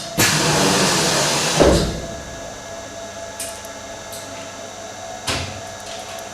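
TRL TPM two-pair shoelast milling machine running with a steady hum. A loud hissing burst of about a second and a half ends in a clunk, and a single knock comes about five seconds in.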